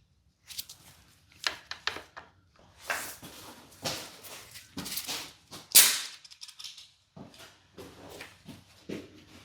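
Compression tester and tools being handled on an outboard's cylinder head: irregular clicks, knocks and scrapes, with one sharp knock about six seconds in, as the gauge is moved to the lower spark plug hole.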